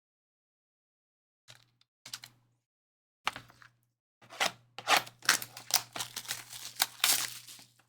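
Trading-card packaging being handled and opened by hand: a few light taps and rustles, then from about halfway a busy run of crinkling, tearing and clicking.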